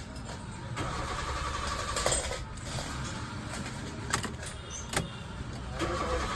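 Hyundai i10 engine cranking on the starter without catching, in two stretches of whirring, with a few sharp clicks between them: a no-start.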